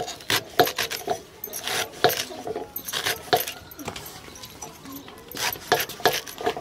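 Fresh chickpea and letri greens being finely chopped against a hand-held sickle blade over a steel plate: irregular crisp cutting strokes, a few a second, that pause briefly around four seconds in.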